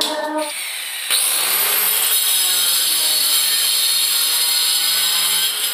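Handheld electric marble cutter starting up about a second in, its whine rising as the blade spins up, then running steadily and loudly as it cuts freehand through a stone strip.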